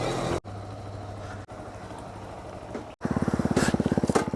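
Kawasaki Z125 Pro's small single-cylinder engine running on the road, with wind noise over it. The sound jumps at a few short cuts, and about three seconds in it turns into a louder, fast even pulsing.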